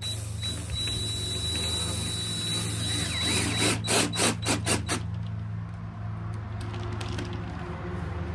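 Cordless DeWalt drill driving a screw into a vinyl lattice cap. The motor runs steadily for about three seconds, then gives six or seven short bursts in quick succession as the screw is run in.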